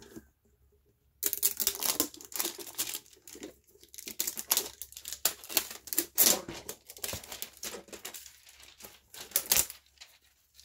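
Clear plastic shrink-wrap being torn and crumpled off a metal collector tin: dense crinkling and crackling that starts about a second in and stops shortly before the end.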